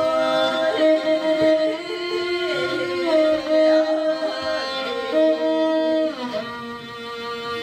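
A bowed string instrument plays a slow melody in long held notes, sliding between pitches, with the melody easing off near the end.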